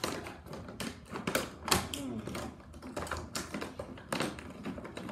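Toy packaging being forced apart by hand: a quick, irregular run of sharp snaps, clicks and crackles.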